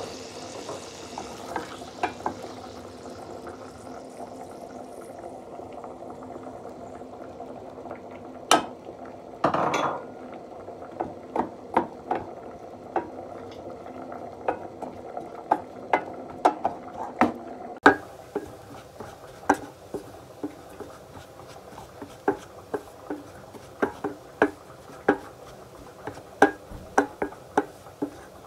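Wooden spatula stirring butter and flour in a stainless steel saucepan, knocking against the pan about once a second, over a steady sizzle of the hot butter. About ten seconds in there is a brief louder rush.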